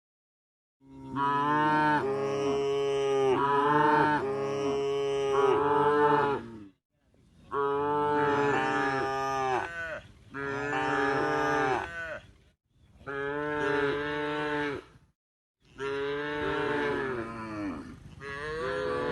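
A cow mooing: a run of about five long, drawn-out moos in a row with short pauses between them.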